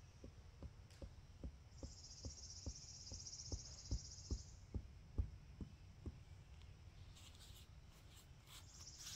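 A quick, even run of dull thuds, about two and a half a second, growing louder and then fading out after about six seconds. A steady high buzz runs for about three seconds partway through.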